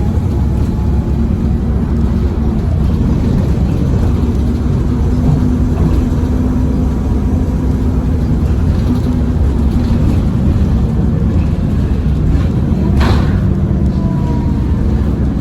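A 2010 Nova Bus LFS articulated bus under way, heard from inside: the Cummins ISL diesel's steady low rumble with a faint steady turbo whine above it. There is a brief sharper noise about 13 seconds in.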